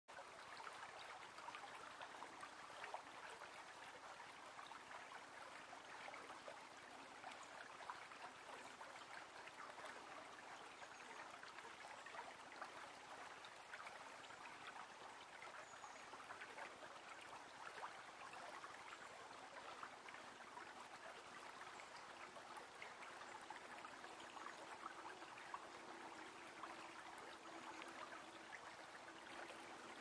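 Faint, steady trickle and babble of a small woodland stream, an even wash flecked with fine crackles. A faint low steady hum joins it about three-quarters of the way through.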